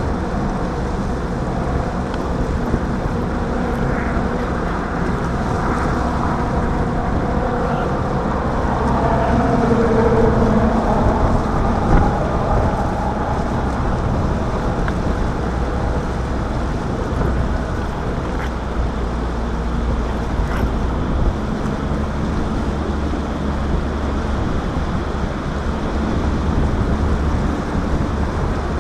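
A boat motor running steadily under wind noise on the microphone, with a faint pitched hum rising and falling in the middle.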